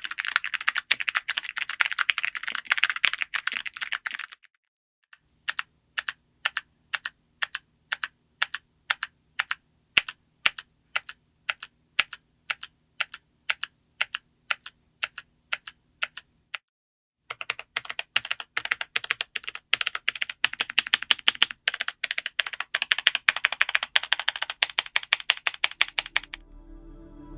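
Mechanical keyboard fitted with full-metal keycaps being typed on: fast typing at first, then single keys pressed one at a time about three times a second, then fast typing again.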